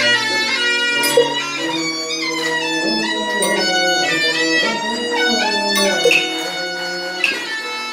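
Taoist ritual music: a melody line with a fiddle-like tone steps from pitch to pitch, over ritual percussion with a few sharp strikes.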